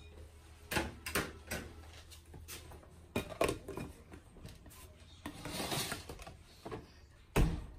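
White ceramic casserole dish and its lid clinking and knocking as the lid is fitted and the dish is handled on a glass-top electric stove, with a longer scrape about two-thirds through as the dish slides across the glass, and one louder knock near the end.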